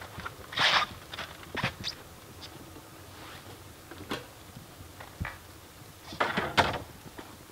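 Camp gear being handled: scattered knocks and clunks, with two short rustling, scraping sounds, one about half a second in and one near the end.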